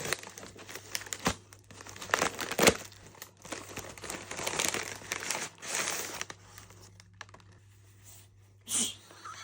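Gift packaging being crinkled and torn open by hand: irregular rustling and crackling with a couple of sharp snaps in the first three seconds, denser rustling a few seconds in, then a lull and one last crinkle near the end.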